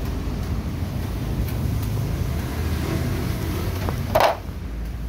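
Steady low background rumble, with one short, loud sharp noise about four seconds in.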